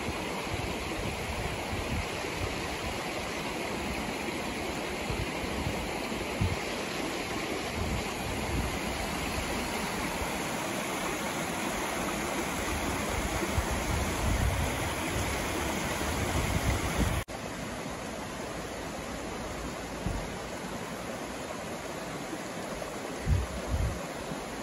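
Steady rush of a mountain river's flowing water, with occasional low bumps of wind on the microphone. About two-thirds of the way through, the rush drops abruptly to a slightly quieter level and carries on.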